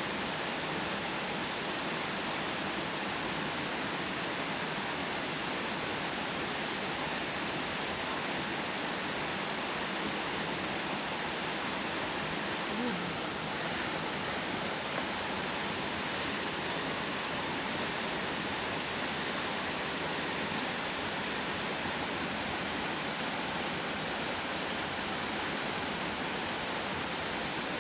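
Waterfall rushing, a steady unbroken sound of falling water.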